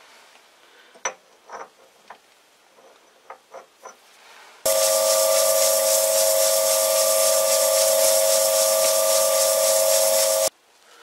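A few faint light clicks, then, about halfway in, a loud steady hiss of pressurised air escaping from a nozzle, with a whistling tone. It starts and cuts off suddenly, lasting about six seconds.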